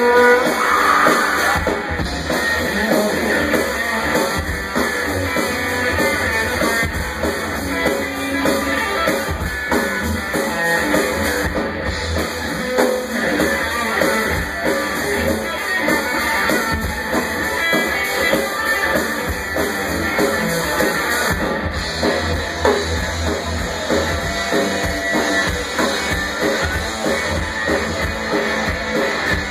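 Live rock band playing loud and without a break, with guitar and a drum kit, recorded from the audience.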